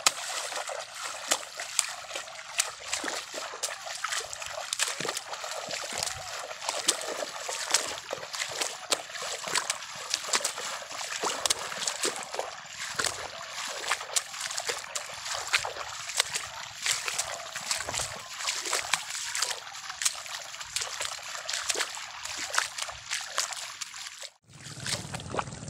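Muddy rice-paddy water splashing and sloshing as someone wades through it step after step, with bundles of rice seedlings splashing down into the water. The splashing cuts off abruptly shortly before the end.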